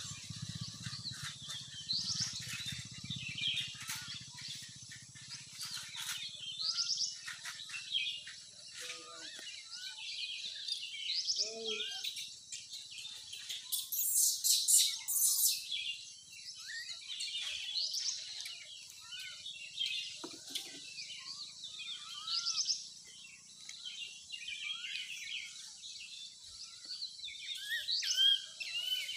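Many birds chirping and calling in a continual chorus of short high chirps and whistles, with one loud harsh rasping burst about halfway through. A faint low hum sits under the first third.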